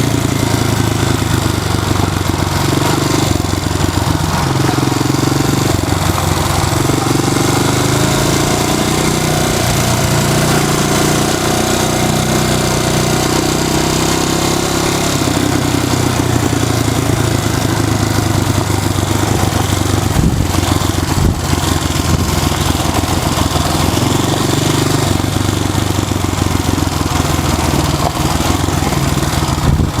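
Honda XL250S's single-cylinder four-stroke engine running as the trail bike is ridden, its pitch rising and falling with the throttle, over a steady rushing noise. A couple of short knocks come about twenty seconds in.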